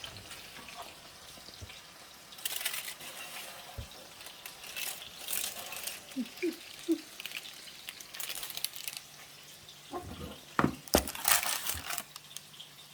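Kitchen cooking sounds: a frying pan sizzling on and off while metal utensils clink and scrape, with a sharp clatter about eleven seconds in.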